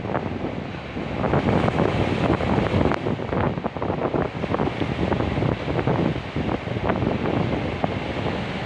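Sea waves washing and breaking on the shore, a continuous rushing with irregular crackle, mixed with wind buffeting the microphone.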